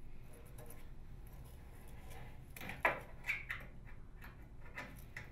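Light handling noises and scattered clicks as a microwave oven's high-voltage capacitor is pushed into its sheet-metal retaining bracket. The loudest clunk comes about three seconds in.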